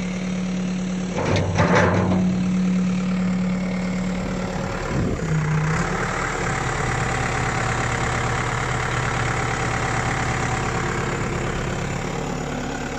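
New Holland LB95 backhoe loader's diesel engine running steadily, with a brief louder surge about a second in and the engine note dropping to a lower steady pitch about five seconds in.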